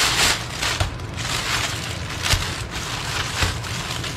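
Plastic packaging rustling and crinkling as packets of craft supplies and bubble mailers are pulled out of a plastic mailer bag, with irregular crackles and a few soft knocks as items are set down on the table.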